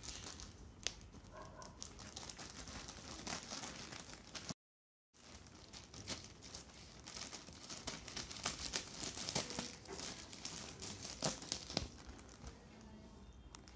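Packaging of a keyboard box being cut open and handled: crinkling and tearing with scattered small clicks, busiest in the second half. About a third of the way in, the sound drops out completely for half a second.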